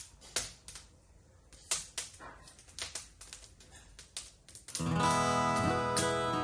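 Faint, scattered clicks and knocks, then guitar music starting loud near the end.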